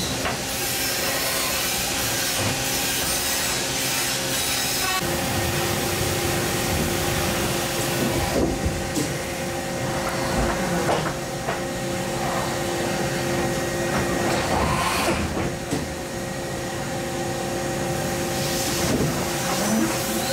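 An OKK HM4 horizontal machining center running, with a steady hiss of coolant spraying and the spindle's held whine, which sets in about five seconds in. Near the end a rising whine comes in.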